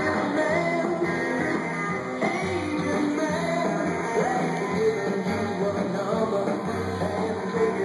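Rock music with guitar, a steady bass line and a singing voice.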